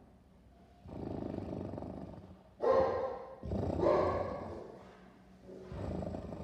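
Golden retriever growling with a plush toy held in its mouth: four drawn-out growls, the two in the middle louder.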